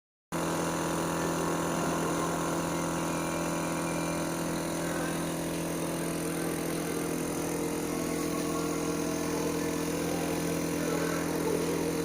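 Steady hum of a running motor, even in pitch and level, starting suddenly just after the beginning.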